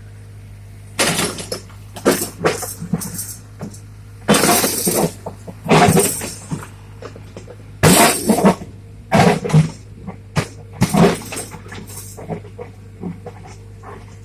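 Caterpillar 305.5E mini excavator working, its engine a steady hum under about a dozen loud, irregular crashes and scrapes of material, each lasting up to about a second.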